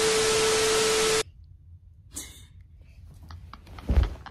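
TV-static glitch sound effect: a loud hiss with a steady beep-like tone under it, cutting off suddenly after about a second. Then faint rustling and a low thump near the end as the phone is handled.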